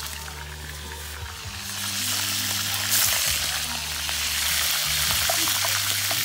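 Seafood deep-frying in a pan of hot oil, a steady sizzle that grows louder about two seconds in.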